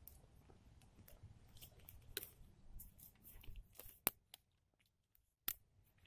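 Dry pine needles and twigs crackling as a small fire catches: faint irregular pops, with two sharper snaps about four seconds in and a second and a half later.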